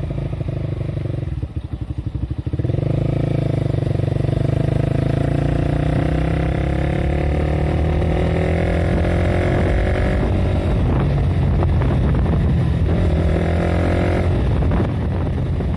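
Honda CBR150R's single-cylinder engine under way, with a pulsing low-rev beat about two seconds in, then pitch rising steadily as the bike accelerates, dropping at a gear change around ten seconds in and rising again near the end.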